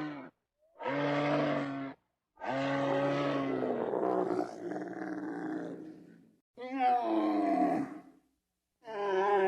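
An animal calling over and over: short pitched calls about a second long with pauses between them. Near the end the calls change to ones that rise and then fall.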